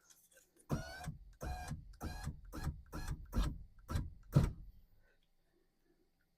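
A power window motor running the door glass in about ten short bursts over four seconds, the switch tapped again and again to move the glass in small steps.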